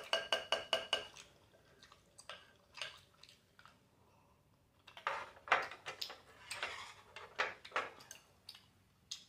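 Wooden utensils clinking and scraping against a glass bowl of saucy tteokbokki: a quick run of ringing taps in the first second. Close-miked eating sounds follow from about five seconds in.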